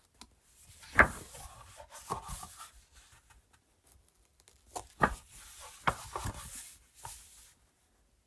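Pages of a book being flipped through: paper rustling with sharp slaps of the pages, in two runs, one starting about a second in and another from about five seconds in.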